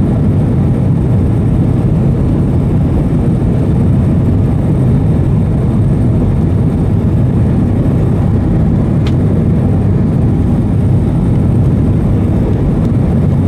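Airbus A320 cabin noise: the jet engines and rushing air make a steady, loud low rumble that does not change.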